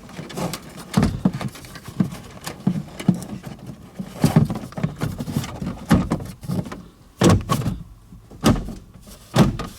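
Irregular knocks, taps and rustles of hands handling a boost controller and wiring against plastic dash trim in a truck cab, with the sharpest knocks about a second in, around the middle and near the end.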